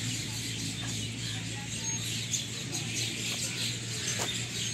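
Birds chirping and twittering in short scattered calls over a steady high hiss and a low steady hum.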